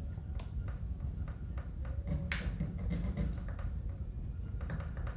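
Scattered light clicks and taps from handling the parts of an old Arno electric fan during disassembly, with one sharper click about two seconds in, over a low steady rumble.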